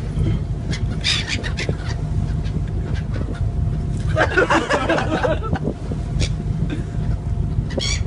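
Gulls calling in a few bursts: about a second in, again for about a second around the middle, and once more near the end. A steady low rumble runs underneath.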